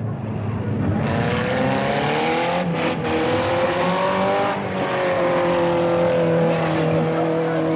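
Car engines revving hard under load, their pitch rising and falling with the throttle, with brief lifts about three seconds in and again about four and a half seconds in.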